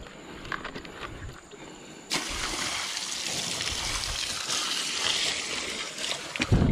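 Water splashing and pouring steadily as a river raft is washed down. It starts suddenly about two seconds in, after a few small knocks, and ends with a couple of low thumps.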